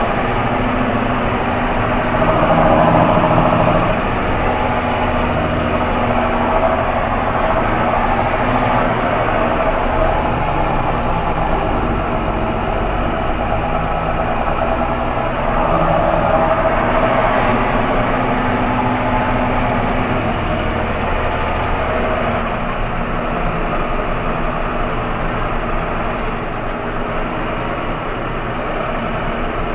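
A John Deere 7530 Premium tractor's six-cylinder diesel engine, heard from inside the cab, running steadily as the tractor drives and turns. It swells a little louder for a couple of seconds about two seconds in and again around sixteen seconds.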